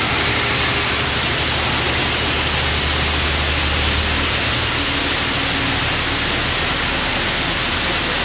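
Grain pouring in a steady stream from a tipped hooklift container into a receiving pit: a continuous rushing hiss over a low, steady machinery hum.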